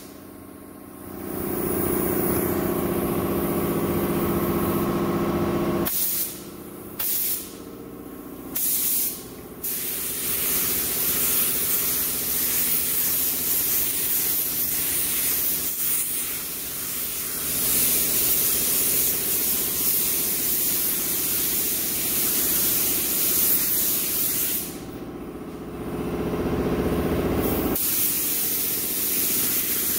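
Black Widow gravity-feed spray gun spraying clear coat at 35 psi. A few short trigger pulls give brief hisses, then the spray turns into long, steady hisses of air and paint, with a short pause before it resumes. A steady low hum runs underneath and stops near the end.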